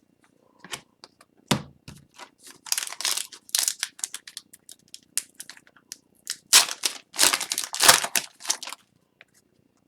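Upper Deck hockey cards and their pack wrapper being handled: a run of crinkles, rustles and quick card flicks, busiest about three seconds in and again near seven to eight seconds.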